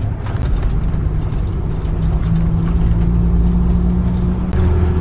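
Diesel motorhome engine running steadily under way, heard from inside the cab along with road noise; the engine note shifts near the end.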